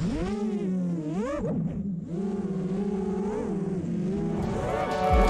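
Four T-Motor F60 Pro 2207 2200KV brushless motors spinning 6x4 props on an FPV racing quadcopter: a buzzing whine that swoops up and down in pitch with the throttle as it lifts off and flies. Music fades in near the end.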